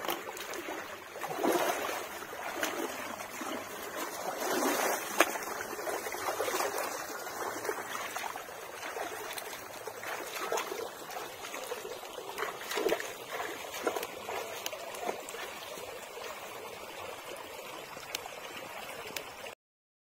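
Shallow stream water running over a low ledge, with splashing and scattered knocks from someone wading and handling snails at a plastic bucket. The sound cuts off suddenly near the end.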